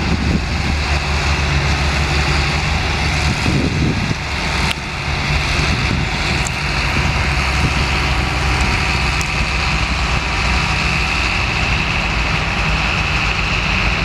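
Tractors and a sugarbeet harvester running steadily under load in the field: a continuous low engine rumble with a constant high whine over it.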